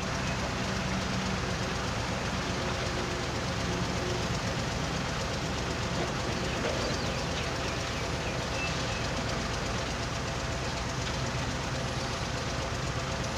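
Heavy machinery of an excavator and a stone-and-sand screening machine running steadily: a low diesel engine hum under a constant rattling noise.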